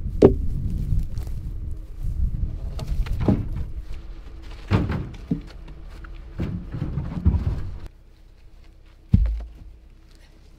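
Wooden cedar fence posts knocking and thudding as they are tossed down onto a pile and handled at a pickup's bed, about six separate knocks spaced unevenly. Under the knocks runs a low rumble that drops away about eight seconds in.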